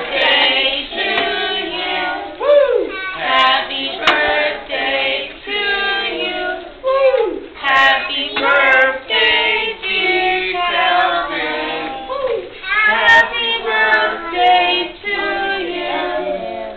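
A group of young children singing a song together in phrases, with short breaks between the lines.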